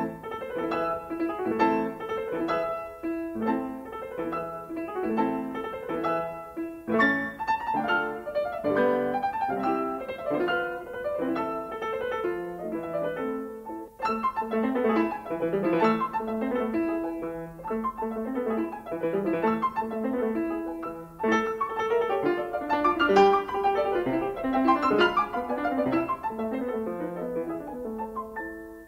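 Background piano music with quick, busy notes.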